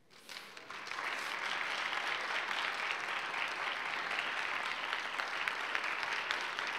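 Church congregation applauding. It starts at once, swells over about the first second, then holds steady.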